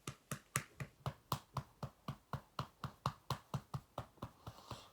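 A baby making a rapid, even string of clicking sounds, about four a second, the repeated noise he has been making for the last two days.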